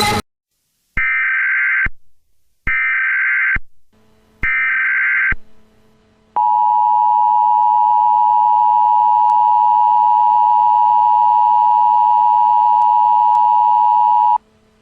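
Emergency Alert System tones: three buzzy data bursts of about a second each (the SAME header), then the steady two-tone EAS attention signal held for about eight seconds before it cuts off abruptly.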